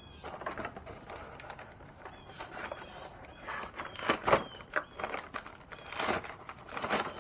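Packaging and small parts being handled: irregular rustling and clattering as the next item is taken out, with a sharp knock about four seconds in.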